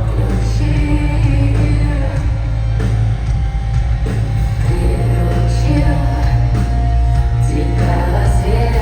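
Live rock band playing with a singer: heavy, steady bass under a sung melody, loud and continuous.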